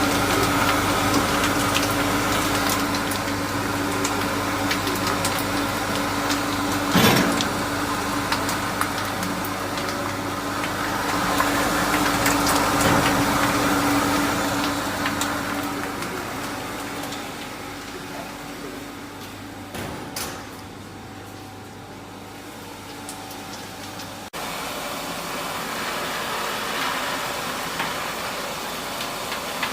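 Oil curtain frying machine running: a steady motor hum over an even noise. There is a sharp knock about seven seconds in, and the hum cuts out abruptly about 24 seconds in.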